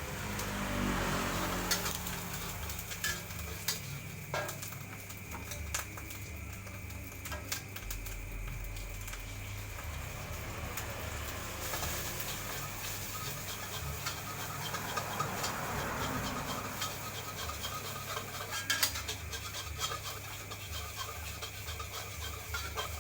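Wok cooking: scattered clinks and scrapes of a metal spatula against the pan over a steady low hum, with two slow swells of louder noise, near the start and about 15 seconds in.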